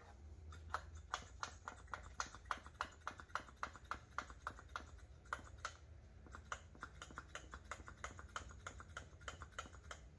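Hand-operated vacuum brake bleeder pump being worked in quick strokes, clicking about three times a second, drawing old brake fluid out through a hose on the caliper's bleed screw. The pumping pauses briefly about halfway through.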